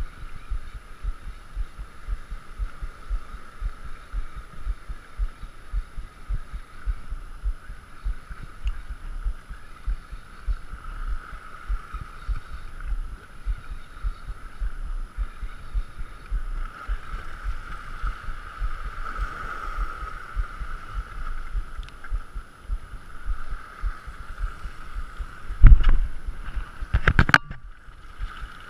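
Spinning reel cranked steadily on a lure retrieve, a continuous whir, with wind buffeting the microphone and small waves washing against rocks. Near the end come one loud knock and then a quick run of sharp clicks.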